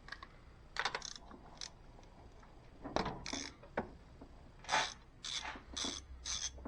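A few scattered tool clicks and knocks, then from about five seconds in a ratchet wrench's regular back-and-forth strokes, about two a second, as a spark plug is loosened with a spark plug socket on an extension.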